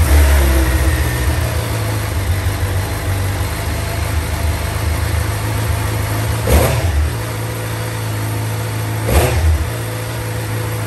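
2020 Suzuki GSX-R750's inline-four engine idling through its stock exhaust just after a cold start. Two short throttle blips come about six and nine seconds in.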